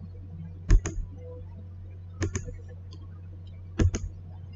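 Computer mouse button clicking: three pairs of sharp clicks about a second and a half apart, over a steady low hum.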